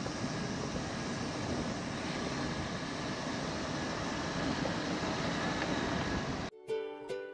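Steady noise of a moving car on the road. About six and a half seconds in it cuts off, and a short plucked-guitar music clip starts.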